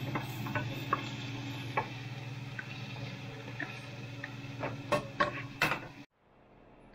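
Salmon steak cooking in a lidded frying pan: a steady sizzle with scattered pops and crackles over a low steady hum, cutting off abruptly about six seconds in.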